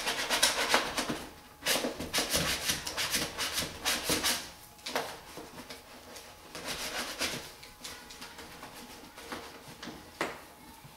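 Paper backing of a vinyl wall decal crinkling and rustling in irregular bursts as it is peeled off and handled, busiest in the first half and quieter toward the end.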